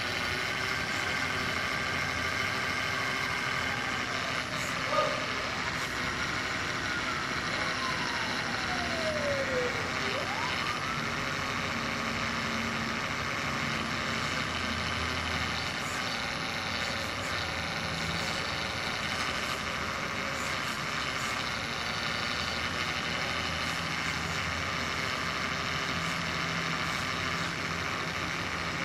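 Radio-controlled hydraulic excavator running under remote control, its electric hydraulic pump giving a steady whine while the boom and bucket work. Partway through, one tone sinks in pitch and then rises again, and there is a single sharp knock about five seconds in.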